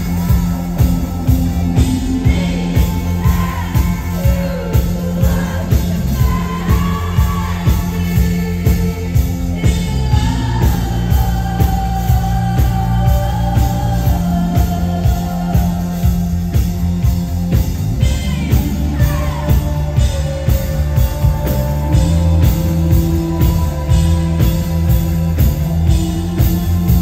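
Live indie rock band playing: a woman sings lead into a microphone, with gliding melodic lines, over electric guitars, bass and a steady drum beat.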